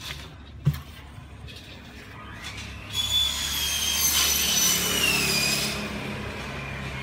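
A motor whining for about three seconds, from about three seconds in, its high pitch rising and falling over a hiss; a low steady hum carries on after it. A single sharp click comes shortly before the first second.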